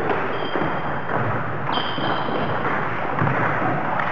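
Table tennis rally in doubles play: the celluloid ball clicking off bats and the table several times, over the steady hum of a sports hall. Two short high squeaks, from players' shoes on the hall floor, come near the start and about two seconds in.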